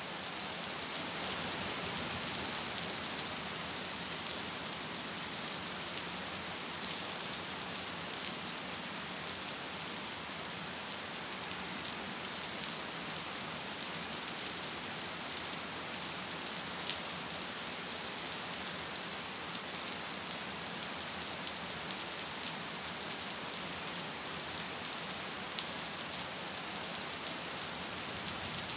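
Gentle rain falling steadily: an even hiss of rain on a surface, with scattered single drops ticking through it.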